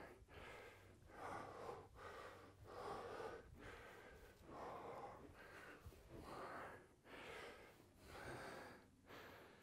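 A man breathing hard from exertion, faint, quick regular breaths in and out, about one a second.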